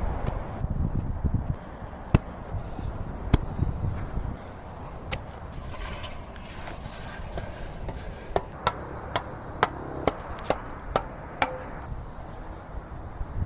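Metal blade of a hand digging tool striking packed dirt: scattered sharp strikes, then a steady run of about two strikes a second, each with a short ring.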